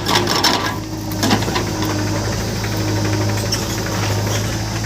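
JCB 3DX backhoe loader's diesel engine running steadily at work, with a few sharp clanks in the first second and a half.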